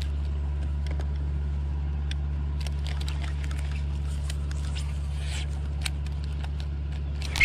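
Steady low motor hum, even and unchanging, with scattered small clicks and ticks over it.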